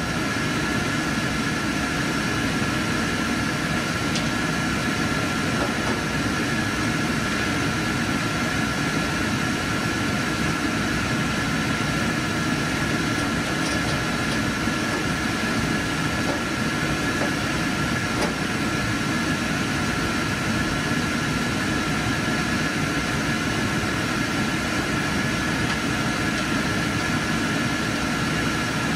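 Steady whir of projection-booth machinery and cooling fans, with a constant high-pitched whine over a low rumble.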